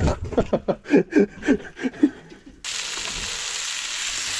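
Food sizzling and frying on a hot barbecue plate, a steady hiss that starts abruptly a little over halfway through. Before it, short wordless vocal sounds from a person.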